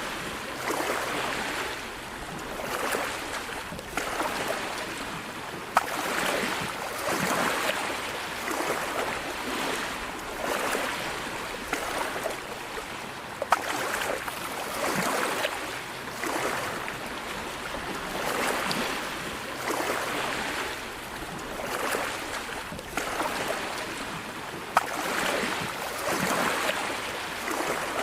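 Sea waves washing in, the surf swelling and easing every couple of seconds. Three brief sharp clicks stand out above the wash.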